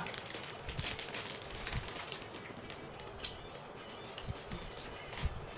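Plastic snack packets crinkling and rustling as they are torn open and rummaged through, with irregular sharp crackles and the crunch of chips being eaten.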